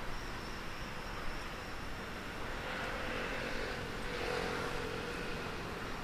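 Steady outdoor background noise with a motor vehicle passing; its engine tone swells between about three and five seconds in.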